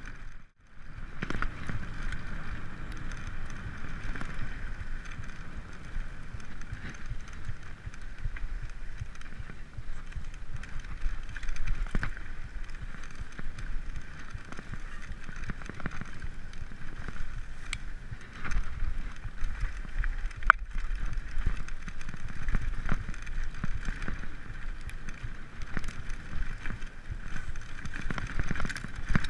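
Mountain bike rolling over a bumpy dirt singletrack: steady tyre noise with the bike rattling and knocking over the ruts, and a sharp click about two-thirds of the way through.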